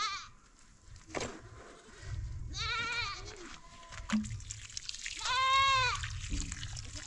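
Livestock bleating: a short quavering bleat about two and a half seconds in, then a longer, louder bleat around five seconds in, over a low rumble.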